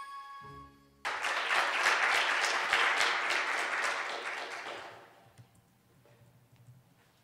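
Audience applauding. It starts suddenly about a second in and dies away after about four seconds.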